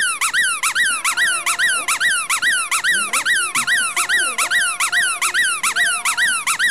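Bone-shaped squeaky dog toy squeaking over and over as a Pomeranian plays with it, about four to five quick squeaks a second, each rising then falling in pitch.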